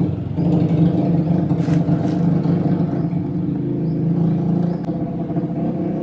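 A motor engine running steadily and loud, a low even hum that holds its pitch throughout.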